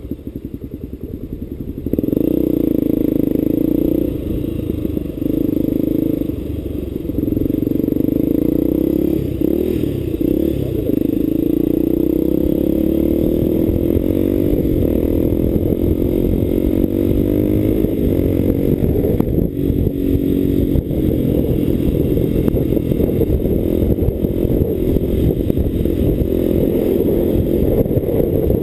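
Motorcycle engine pulsing at low revs for about two seconds, then getting louder and running steadily under way, its pitch holding and then rising and falling with the throttle.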